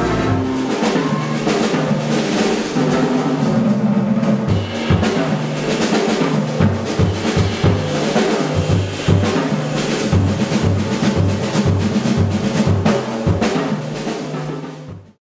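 Big band playing live: drum kit hitting hard and busy with snare and bass drum over saxophones, brass and upright bass. The sound fades out and cuts off in the last second.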